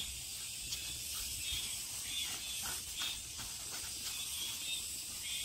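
Damp potato starch rubbed through a metal mesh sieve with a wooden spoon: a soft, scratchy hiss that comes in repeated scraping strokes. The starch is still slightly moist, which makes it easier to push through.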